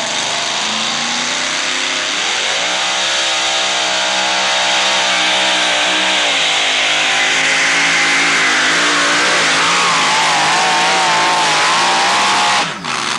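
Two-wheel-drive pulling truck's engine at full throttle, hauling a weight-transfer sled down the dirt track. The revs climb about two seconds in, then hold high with a wavering pitch, and the sound cuts off suddenly near the end.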